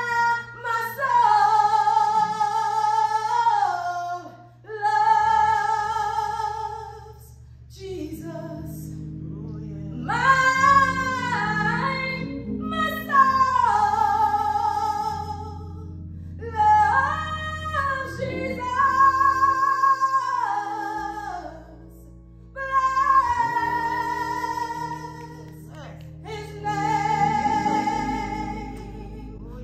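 A woman singing a slow gospel solo into a handheld microphone: long held notes with vibrato in phrases of two to four seconds, broken by short breaths. Under her voice, low sustained chords from an accompanying instrument shift every few seconds.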